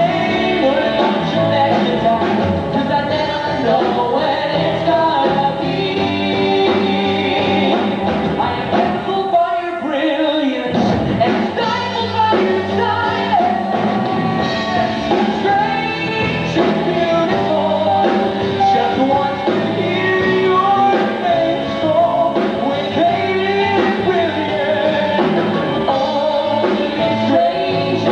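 A woman and a man singing a duet live into handheld microphones, over rock-style band accompaniment. The music thins to a short break about ten seconds in, then picks up again.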